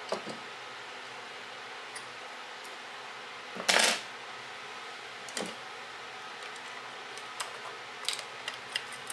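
Light clicks and ticks of small metal camera parts and hand tools being handled on a tabletop. About four seconds in there is one louder, short metal clatter as a pair of tweezers is set down.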